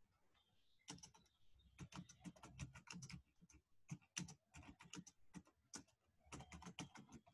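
Faint typing on a computer keyboard: quick runs of key clicks with short pauses between words.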